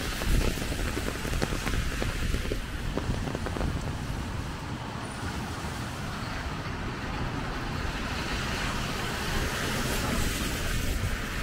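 Steady rain on a wet city street, with wind rumbling on the microphone and traffic noise from the wet road. About ten seconds in, a car's tyres hiss past on the wet pavement.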